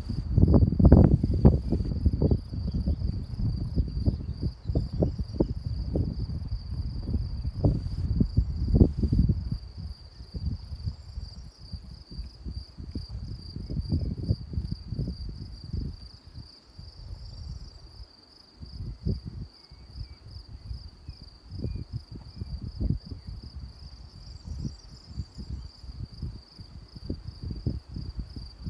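Crickets chirring steadily in the meadow grass, a continuous high, finely pulsing chirr. Gusts of wind buffet the microphone with a low rumble, heaviest in the first ten seconds or so and lighter after.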